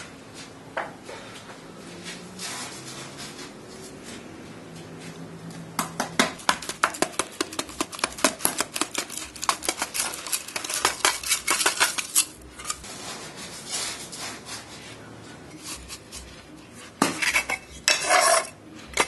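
Quick runs of scraping and clinking as dry cement mix is worked into a metal hydraulic-tile mould with a scoop and by hand, in two bursts: one from about six to twelve seconds in and a shorter one near the end.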